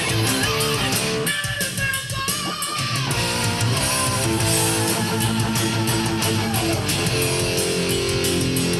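Electric guitar through a DiMarzio DP100 Super Distortion humbucker, playing held notes with vibrato over drums and bass in a heavy metal song.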